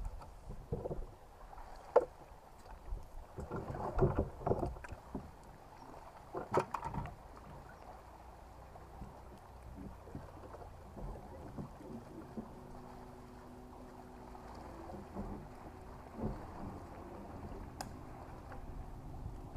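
Knocks and thumps on a bass boat, the sharpest about two seconds in and more clustered around four and six seconds, followed by a steady low hum from about twelve seconds in.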